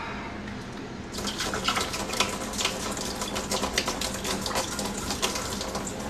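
Water splashing and spattering: after about a second, a dense, crackling patter of water drops and splashes that goes on to the end.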